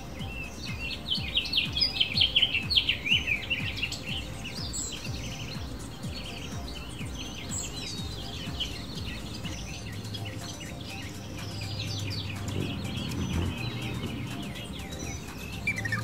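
Male house finch singing: a fast, jumbled warble of high notes about a second in, lasting a few seconds, followed by scattered chirps.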